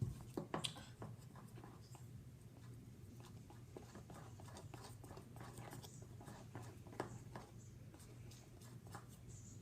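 Popsicle stick stirring a glue and baking-soda slime mixture in a bowl: soft scraping with scattered clicks and taps against the bowl. The sharpest taps come about half a second in and again about seven seconds in, over a low steady hum.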